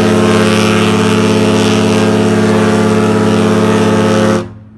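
Cruise ship Grandeur of the Seas' horn sounding one long, loud, steady low blast, the fog signal it gives every couple of minutes in thick fog; the blast cuts off sharply near the end.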